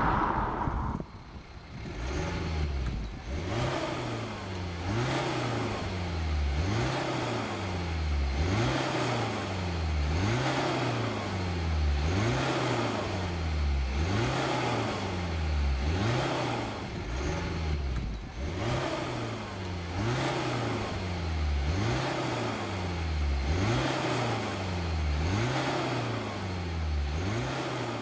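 BMW 420d's four-cylinder turbodiesel breathing through a Cobra Sport stainless steel performance exhaust, revved again and again at standstill, the pitch rising and falling about once every second and a half. In the first second the loud sound of the car driving past dies away.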